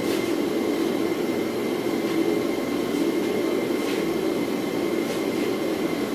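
Blacksmith's forge running with a steady, even rushing noise and a thin high hum, while hot steel is drawn from it; a few faint clinks of tongs on metal.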